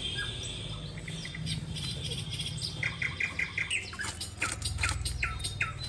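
A small bird chirping: a quick run of short high notes about halfway through, then several short, downward-hooked calls near the end, over a low steady hum.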